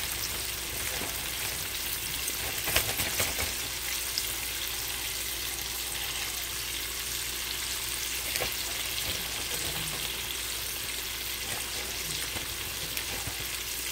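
Flour-coated chicken wings deep-frying in a pan of hot oil: a steady hiss and crackle of bubbling oil, with a cluster of louder crackles about three seconds in.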